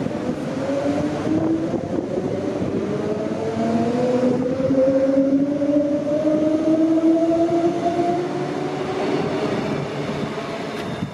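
Queensland Rail electric suburban train pulling away from the platform. Its traction motors give a steady whine that climbs slowly in pitch as the train gathers speed, over the rumble of wheels on rail.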